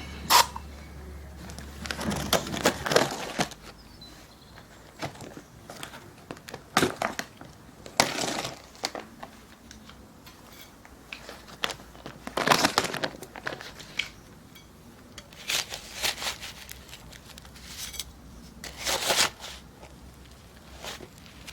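Irregular bursts of gritty scraping and crunching, a few seconds apart: a hand tool working loose stone and cold-lay asphalt in a driveway pothole.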